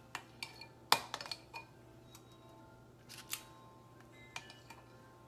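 Scattered light clicks and small clinks of a metal kitchen utensil against a bowl and dish while scooping ricotta filling into cups; the sharpest click comes about a second in, over a faint steady hum.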